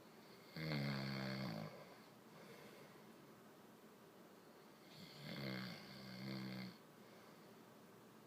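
A man snoring in his sleep: one snore about half a second in lasting about a second, then a longer one about five seconds in that swells twice.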